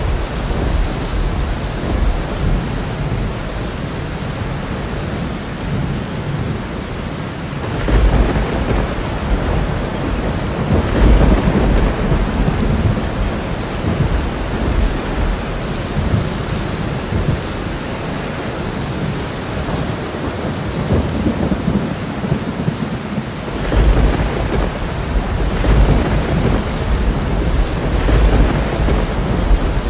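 Thunderstorm: steady heavy rain with rolling thunder rumbling in low swells, the strongest rolls starting about 8, 11 and 24 seconds in.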